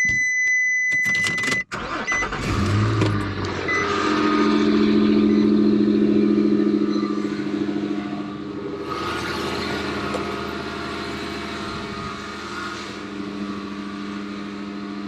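A steady high electronic tone cuts off about a second and a half in, then the Nissan Xterra's engine cranks briefly, catches and runs at a raised idle before settling to a steady, quieter idle.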